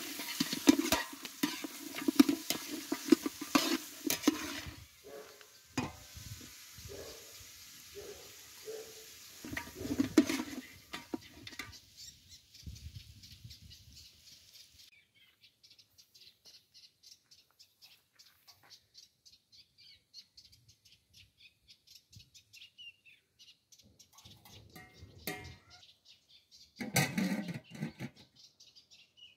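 Beef and onions sizzling in a large aluminium pot, stirred and scraped with a metal spatula for the first few seconds and again about ten seconds in. After that, a bird chirping rapidly and faintly, with a short loud clatter near the end.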